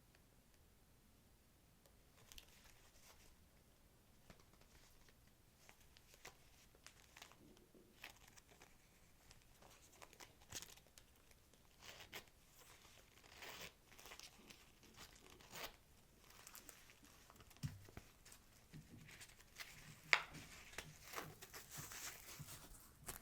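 Packaging being handled close up: crinkling and rustling wrapping with scattered small taps and clicks, busier and louder in the second half.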